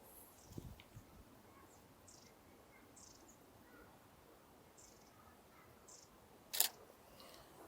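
Faint, scattered bird chirps. A single sharp click comes about six and a half seconds in.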